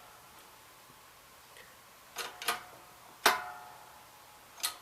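Four sharp metallic clanks, each with a short ring, from steel parts being worked while a bent clamp-on fork is straightened. The first two come close together about two seconds in, and the last comes near the end.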